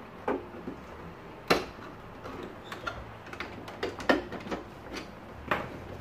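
Irregular plastic clicks and knocks as the vacuum cleaner's housing is lifted off and its catches give way by hand; the sharpest snaps come about one and a half and about four seconds in.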